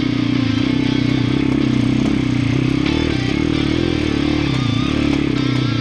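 Dirt bike's single-cylinder engine labouring up a steep, rutted and rooted climb, its pitch wavering up and down with the throttle.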